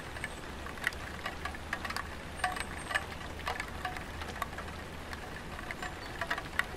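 Light rain falling on a tiled roof: separate drops tapping irregularly, several a second, over a faint low hum.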